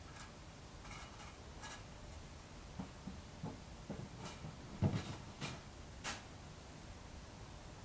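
A few scattered light clicks and soft knocks, with one louder knock about five seconds in.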